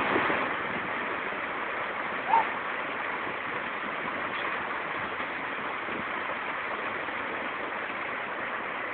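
Steady rush of flowing river water, with one short chirp about two and a half seconds in.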